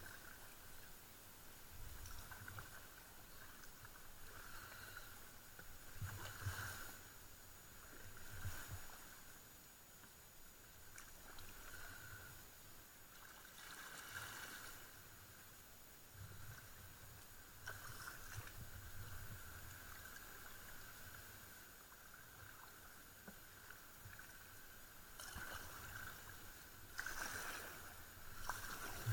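Kayak paddle blades dipping into and pulling through calm river water, a soft splash and trickle every couple of seconds as the strokes alternate. The sound is faint.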